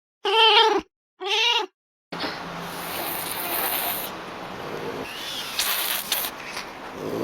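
Pallas's cat (manul) giving two short, loud calls about a second apart, each rising and then falling in pitch. A steady hiss of background noise follows.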